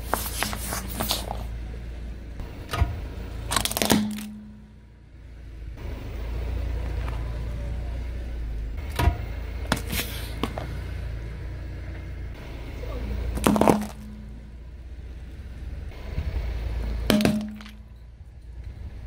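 Car tyre rolling over and crushing small plastic objects on brick paving, with sharp cracks and crunches in five bursts a few seconds apart, over the car's steady low engine rumble.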